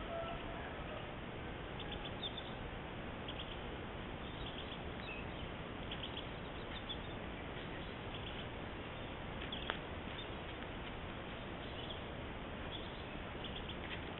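Steady hiss of a Browning trail camera's microphone, with faint, short, high chirps scattered through and one sharp click about ten seconds in.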